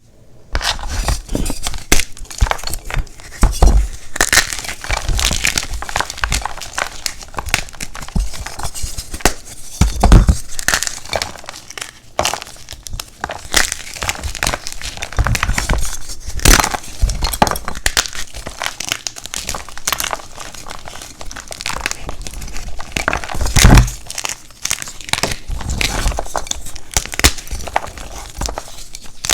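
Black-dyed gym chalk blocks being crushed: a dense, continuous crunching and crumbling made of many small cracks, with a few harder, heavier crunches about ten seconds in and again past the three-quarter mark.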